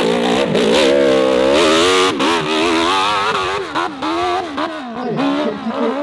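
Hill-climb motorcycle with a long extended swingarm at full throttle, launching up a steep dirt slope. The engine pitch rises and falls repeatedly as the rear tyre spins and throws dirt.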